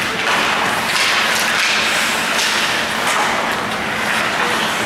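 Ice hockey play in a rink: a steady wash of noise with short scraping streaks from skates cutting the ice and sticks knocking.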